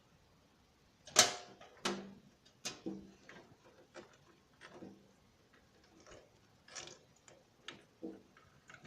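Irregular clicks and light knocks of computer parts and cables being handled and fitted inside a desktop PC cabinet, about eight in all, the loudest about a second in, some with a short hollow ring.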